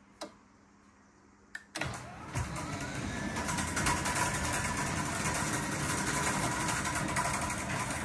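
Eco Residential 1000N chain-drive garage door opener motor starting up about two seconds in, after a faint click, then running steadily as it lowers the door.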